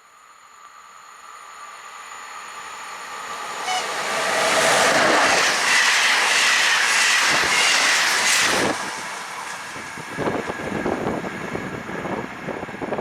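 A train passing close by, growing louder over about four seconds to a loud peak with a steady high whine. About nine seconds in the whine drops away, leaving wheels clattering over the rail joints.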